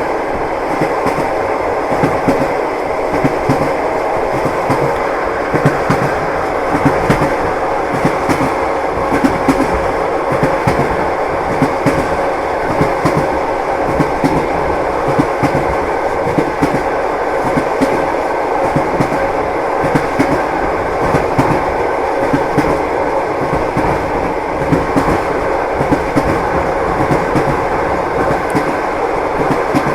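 A moving train's wheels knocking over rail joints, many short clicks over a steady rolling rumble.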